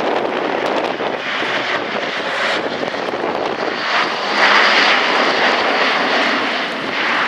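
Airbus A400M's four TP400 turboprop engines running at display power in a pass, a dense steady roar that swells to its loudest about four and a half seconds in, then eases slightly.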